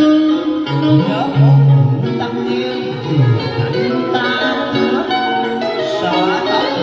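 Music: an instrumental passage of a song with guitar.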